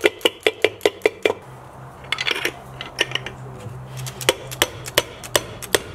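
Soft-faced mallet tapping a ball bearing into place on a Honda S600 chain-drive case: a fast run of light metallic taps, about five a second, then a short pause and slower taps driven through a tube drift. A faint steady hum runs under the taps from about a second and a half in.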